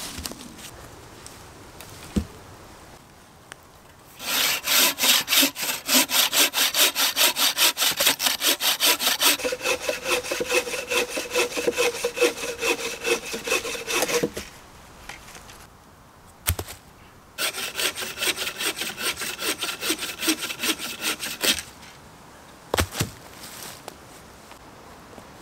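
Hand saw cutting through a log in quick back-and-forth strokes, in two bouts: a long one of about ten seconds with the blade ringing partway through, then a shorter one of about four seconds. A sharp knock comes between the bouts and another shortly after the second.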